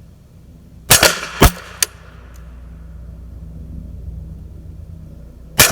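Suppressed 9mm carbine shots, a PSA AKV with a SilencerCo Octane 45 HD suppressor firing 147-grain rounds. Three shots come in quick succession about a second in, then a smaller sharp crack, and another shot comes near the end.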